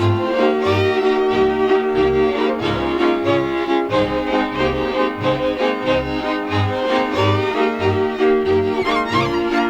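Transylvanian folk string band playing: a fiddle melody over bowed chords and a bass bowing a steady beat, about one and a half bass strokes a second.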